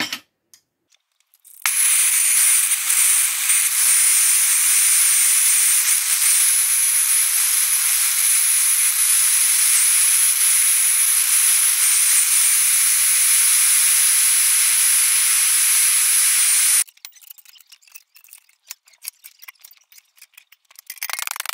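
Gas blow lamp flame hissing steadily on a steel bracket held in a vise, with a thin high whistle over the hiss; it starts about two seconds in and cuts off suddenly about three-quarters of the way through. Light metal clicks follow, louder near the end.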